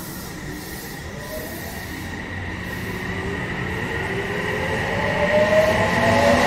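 Odakyu electric commuter train pulling away from the platform: its traction motors and inverter whine in several tones that rise steadily in pitch as it gathers speed, growing louder toward the end.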